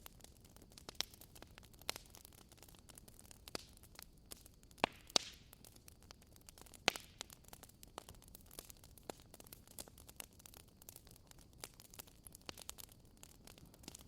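Wood fire crackling: irregular sharp pops and snaps over a low steady hiss, with a few louder snaps around five and seven seconds in.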